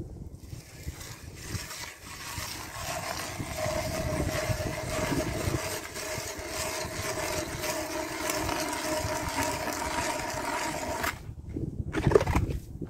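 Powered ice auger drilling a hole through the ice: a steady motor sound with grinding from the blades, which stops suddenly about eleven seconds in. A brief loud scrape follows near the end.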